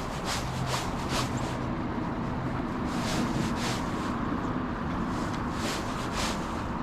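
Steady rush of river water with wind buffeting the microphone, and a few soft swishes that come in pairs.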